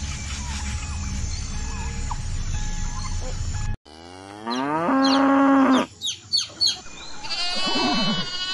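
Steady low outdoor background with a few faint bird calls, which cuts off abruptly about four seconds in. Then comes a string of farm-animal sounds: a long cow moo, a few quick chicken clucks, and another drawn-out animal call near the end.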